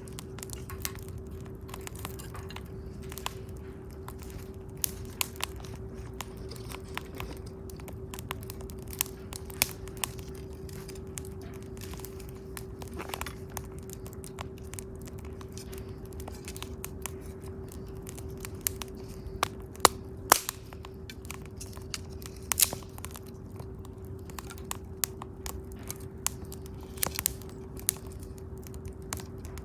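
Wood campfire crackling, with irregular sharp pops and snaps and two louder pops about two-thirds of the way through. A steady low hum runs underneath.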